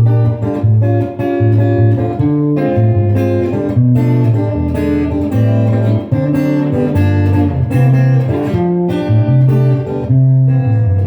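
Acoustic guitar music: plucked notes over a steady bass line, played at a moderate pace.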